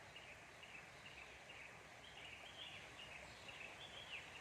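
Faint outdoor ambience with birds chirping over and over in the background, several short high chirps a second.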